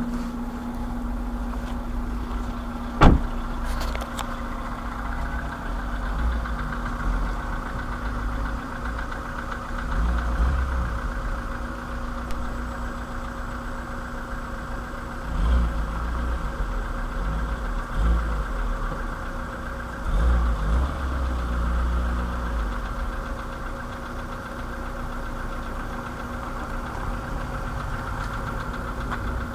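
VW Polo sedan's 1.6-litre CFNA petrol engine idling with a knock, which the owner takes for piston knock at 192,000 km. A single sharp click about three seconds in.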